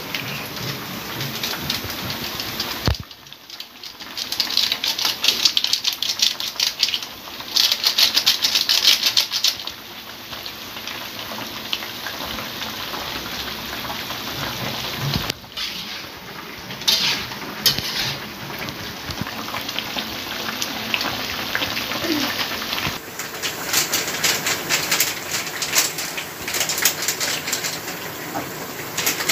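Tofu and tempe in sweet soy stew simmering and sizzling in a metal wok, a dense crackling hiss, with the spatula now and then scraping the pan. The sound breaks off abruptly about three seconds in and again at a few later points.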